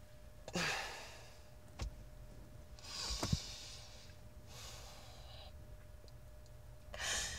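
A few breathy sighs and exhalations about two seconds apart, from someone upset and near tears, with a small click or two between them.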